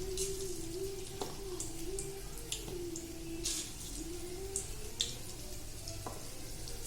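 Batter-coated chicken pieces deep-frying in hot oil: steady sizzling with scattered crackles and pops, over a low wavering hum.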